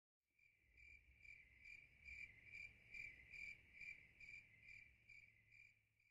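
Faint cricket chirping, a steady high trill pulsing about twice a second that swells and then fades away.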